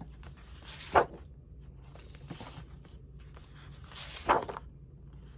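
Paper sheets being handled and shuffled, with two brief crisp rustles, one about a second in and one about four seconds in.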